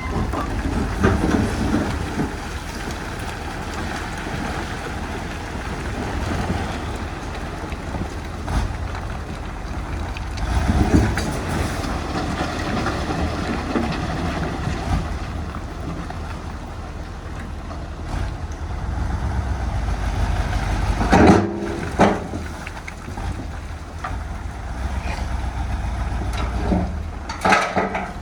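Heavy diesel earthmoving machinery running under load with a steady low rumble, broken by a few sharp loud knocks, twice close together past the middle and again near the end.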